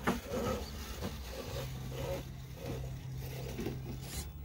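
Small RC rock crawler with a brushed 540 electric motor creeping over rock at low throttle. From about a second and a half in, a steady low motor whine runs until near the end, with light scrapes and clicks of the tyres and chassis on stone.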